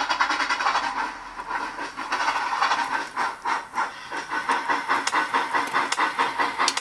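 Digital sound of a model steam tank locomotive, from a DCC sound decoder or JMRI's Virtual Sound Decoder: hissing exhaust chuffs, settling into a steady beat of about four or five a second in the second half.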